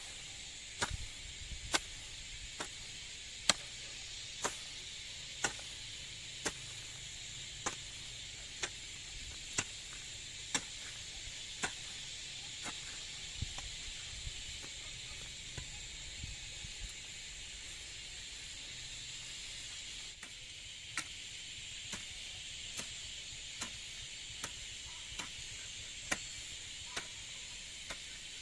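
Sharp strikes at a steady pace of about one a second, like a hand tool hitting ground or stems, growing sparser after about twenty seconds. Under them runs a steady high-pitched hiss.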